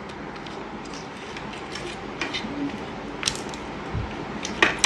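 Small scattered clicks and scrapes as pieces of sugar honeycomb (dalgona) candy are picked and snapped apart by fingers on plates, over a steady background hiss. A soft thump comes about four seconds in.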